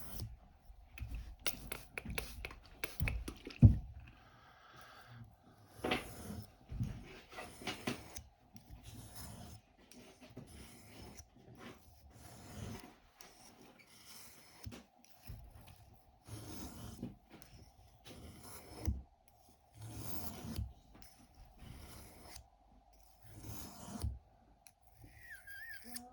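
A stainless pocket-knife blade being stroked across a water-wetted fine-grit whetstone, in repeated scraping passes a little under a second apart, with a sharper knock about four seconds in.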